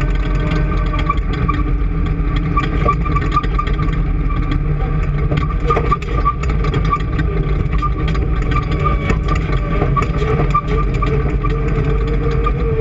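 An engine running steadily, with a steady higher tone over its low rumble and frequent light ticks.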